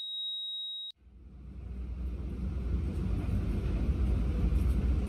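A steady high electronic beep, a heart monitor's flatline, cuts off suddenly about a second in. After a brief silence a low vehicle rumble, heard from inside a van's cabin, fades in and grows steadily.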